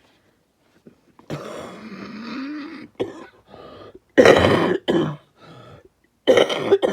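A woman in a coughing fit: a drawn-out throat-clearing rasp, then several hard coughs, the loudest about four seconds in and again near the end.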